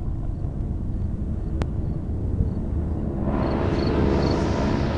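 Aircraft engine noise swelling up about three seconds in and cutting off abruptly near the end, over a steady low rumble of wind on the microphone.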